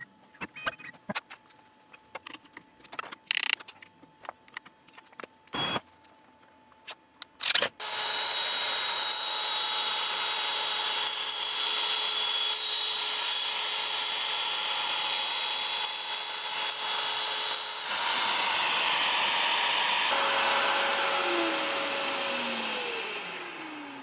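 A few scattered clicks and knocks, then about eight seconds in a Makita router on a hobby CNC machine spins up and cuts a 1/16-inch polycarbonate sheet with a 1/8-inch downcut bit: a steady whine with several tones over a cutting hiss. Near the end the router winds down in a falling whine.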